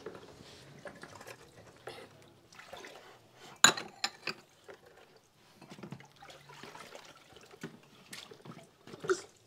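Dishes being washed by hand: light splashing and dripping of water with scattered clinks and knocks of dishes, the sharpest clink about three and a half seconds in.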